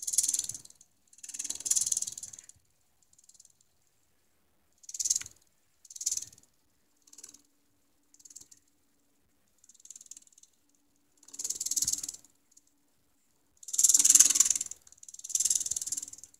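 Small hobby RC servo whirring in short, jerky moves: about ten bursts of high, buzzy gear-motor noise, each under a second, as its position is set by turning a potentiometer on a 555-timer controller. A faint steady low hum sits under the middle part.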